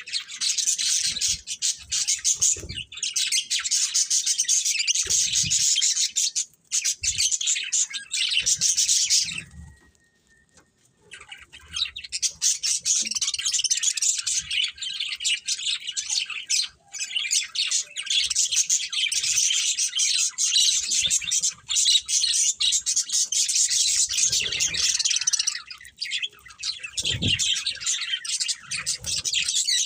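Budgerigars chattering and warbling in a dense, continuous stream of quick chirps, breaking off for a second or so about ten seconds in.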